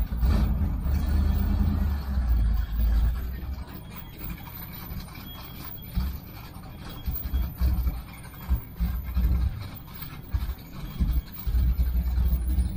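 Low car engine and exhaust rumble, heavy for the first few seconds and then coming and going in short uneven bursts.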